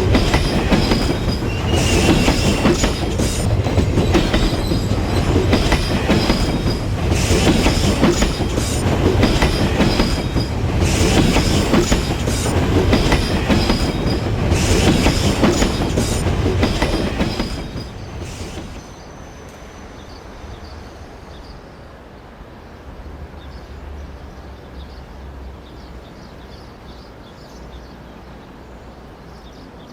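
A train passing, its wheels clattering over the rail joints with a thin high squeal from the wheels on the rails. The noise stops about 18 seconds in, when the train has passed, leaving a much quieter background.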